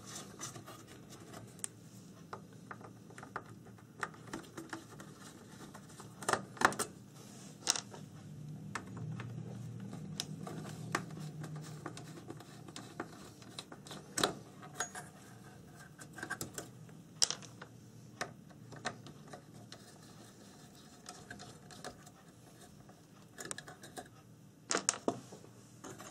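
Screws being taken out of the circuit board of a Meratronik V560 multimeter with a screwdriver: scattered sharp clicks, taps and light scraping of metal on metal and plastic, a few of them louder.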